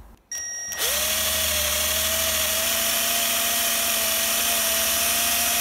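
Electric drill whining up to speed about a second in, then running steadily as it drills out a seized aluminium bolt.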